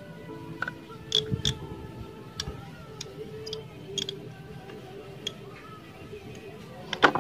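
Scattered sharp metallic clicks and taps as a thin metal rod is worked against a scooter carburetor body during cleaning, the loudest near the end.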